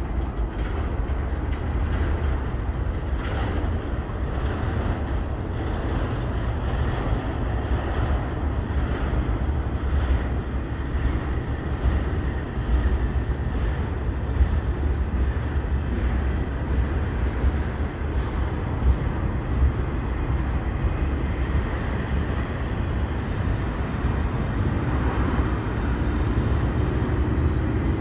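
CSX double-stack intermodal container cars rolling slowly past: a steady low rumble of steel wheels on rail, with scattered clacks and knocks.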